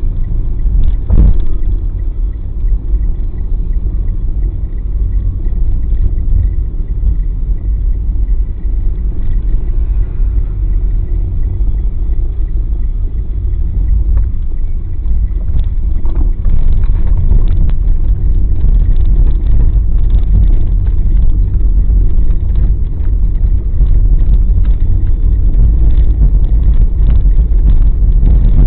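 Deep, steady rumble of a moving vehicle, getting louder about halfway through.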